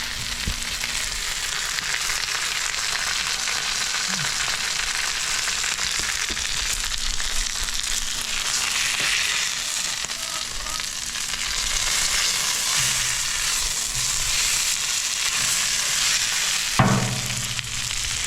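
Food sizzling steadily on a Blackstone flat-top griddle, an even frying hiss. A brief voice-like sound comes near the end.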